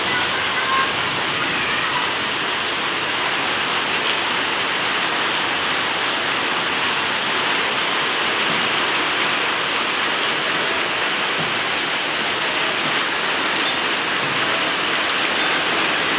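Steady, heavy rain falling, an even hiss of drops with no let-up.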